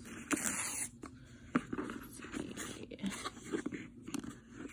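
Ribbon and a paper gift tag being handled on a cardboard box: a short rustling scrape about half a second in, a sharp tap at about a second and a half, then scattered small rustles and taps.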